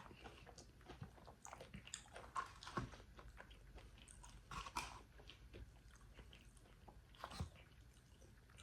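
Close-miked mouth sounds of someone eating crispy fried chicken: quiet chewing with sharper crunches of the breading, loudest around three seconds in, near five seconds and about seven seconds in.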